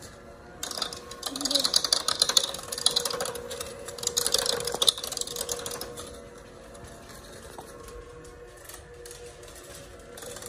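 Electric hand mixer running, its beaters churning cookie batter in a plastic bowl. For the first half the beaters rattle and clatter loudly against the bowl; after that only the steady motor hum remains.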